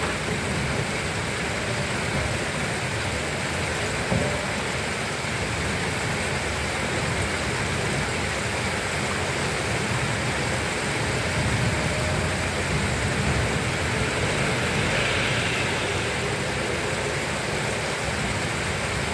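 Steady heavy rain falling on a garden in a thunderstorm, an even hiss with a low rumble underneath. A brief knock about four seconds in.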